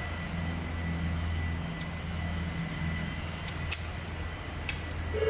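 Milling machine running with a steady low hum, a few light clicks about four to five seconds in.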